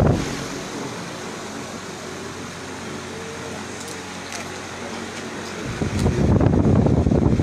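Steady room hum with faint voices in the background. About six seconds in, a loud low rumbling noise on the microphone cuts in again, like wind or rubbing on a phone's mic.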